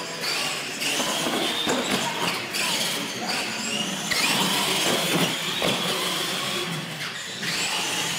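Electric R/C monster trucks racing on a concrete floor: high motor whines that rise in pitch as they accelerate and hold, with scattered knocks and thumps from the trucks and their tyres.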